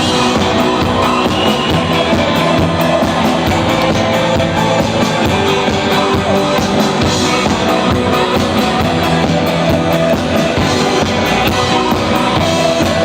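Instrumental break of a rock song between sung verses: band playing with guitar and drum kit, no vocals.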